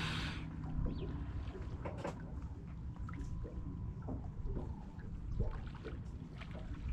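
Wind rumbling on the microphone, with scattered light ticks and taps and a faint steady whine.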